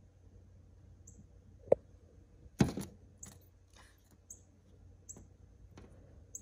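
Knocks on a window pane: a sharp tap, then about a second later a louder thump and a few lighter taps, as a cat paws at the glass toward a bird outside. Faint short high chirps come about once a second throughout.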